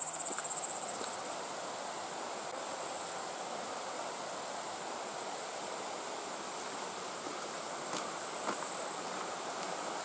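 Insects chirping in a high, fast-pulsing buzz that fades out about a second in, then a steady even hiss with a couple of faint ticks near the end.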